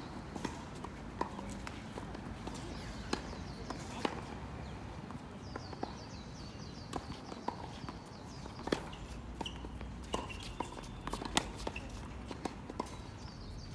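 Racket-sport doubles play in a sports hall: irregular sharp hits and ball or shuttle strikes, with shoes squeaking on the court floor now and then, over a steady hall hum.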